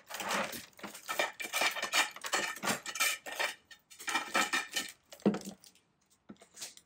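A metal tool scraping, clinking and knocking against the inside of a thin bonsai pot in quick, irregular strokes, with some brief ringing from the pot, as a tree that sits very tight in it is worked loose. The clatter is dense for about five seconds, then thins to a few isolated clicks.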